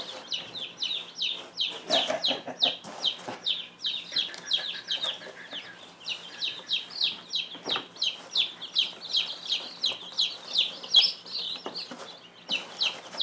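A flock of young chicks peeping continuously: short, high, falling notes, several a second and overlapping, with a few faint knocks in between.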